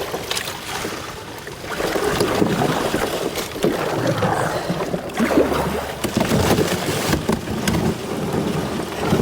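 Aluminum-free guesswork aside: a canoe being forced through thick river ice, the hull grinding, scraping and crunching against the ice sheet with irregular cracks and short squeaks.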